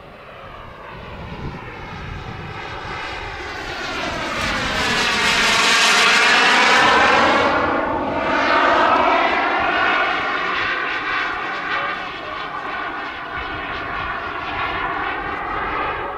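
Turbine engine of a Boomerang RC jet making a pass overhead, its whine and jet rush growing louder to a peak about six seconds in, then easing off a little as it flies away.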